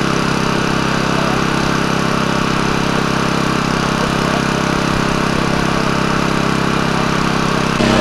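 An engine idling with a steady drone; just before the end the drone shifts to a slightly louder, different tone.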